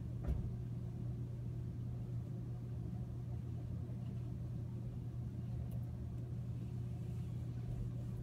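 Steady low room hum, with a single short click about a third of a second in.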